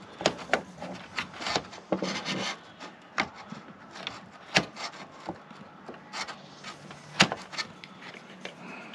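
Irregular clicks, taps and short scrapes of a RAM stick being pushed and worked against a motherboard memory slot and its plastic latches. The stick is not seating: it will not go into the slot.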